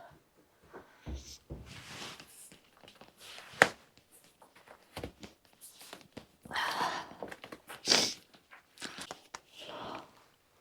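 Scattered footsteps, rustling and thuds of a person moving about indoors, with one sharp knock about three and a half seconds in.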